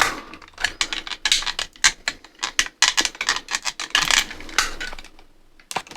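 Irregular clicks and rattles of a plastic computer mouse shell being handled and pried at to separate its halves, with a brief scrape about four seconds in.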